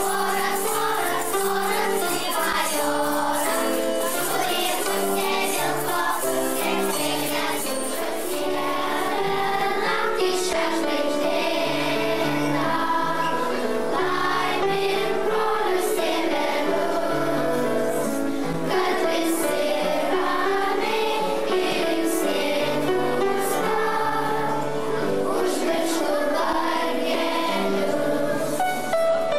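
Children's choir singing a song over instrumental accompaniment, with a low stepping bass line and light jingling percussion.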